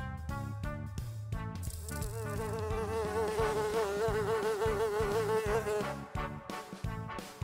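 A housefly's buzz, loud and wavering in pitch, starting about two seconds in and stopping about six seconds in. Light background music plays around it, alone at the start and again near the end.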